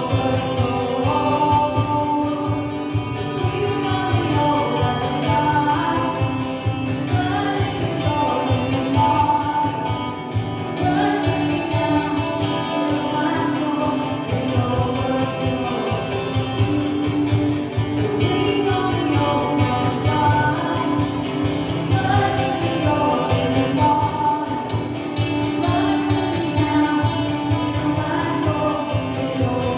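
Gospel worship music: several voices singing over instruments with a steady beat.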